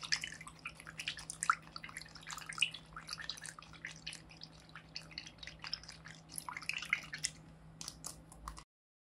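Fingertips pressing and poking a water-filled paper-and-tape craft pool, making quick, irregular wet clicks, pops and drip sounds. The sound cuts off abruptly near the end.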